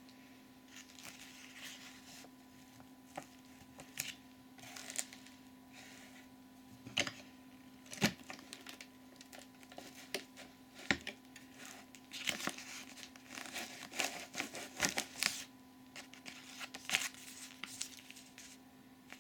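Handling noise from an unplugged AEG UltraOne vacuum cleaner: irregular sharp plastic clicks and knocks as its cover and filter compartment are opened and worked. Between them, a packing sheet and a paper label rustle and crinkle.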